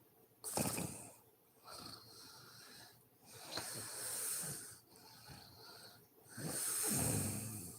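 Woman snoring in her sleep: a loud snore about half a second in and another near the end, with quieter breathy, wheezing breaths between.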